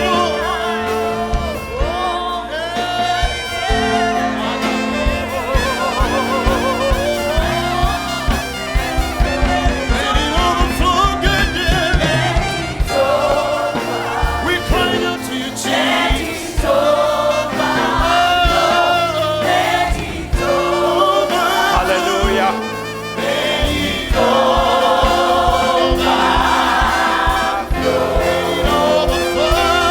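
Gospel praise music: a choir singing together over a live band, with steady sustained chords and a regular beat.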